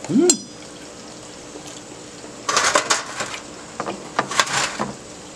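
Dishes and cutlery clattering in a short cluster of sharp strikes about halfway through, with a few more clicks after it, over a steady low hum. A brief rising-and-falling vocal sound comes right at the start.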